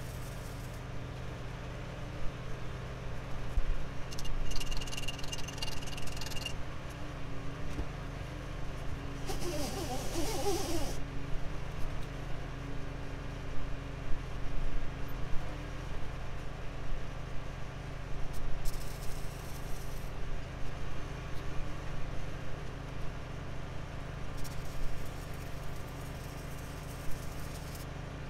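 Electric arc welding on a tractor's hydraulic lift cylinder, in several short bursts of crackling hiss. A steady low hum runs underneath.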